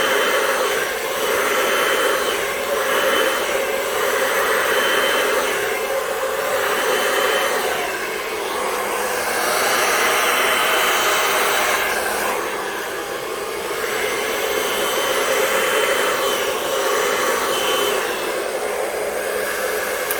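Hand-held hair dryer blowing air across wet poured acrylic paint: a steady airy hiss that swells and dips every second or two as it is swept back and forth, with a faint high whine that comes and goes.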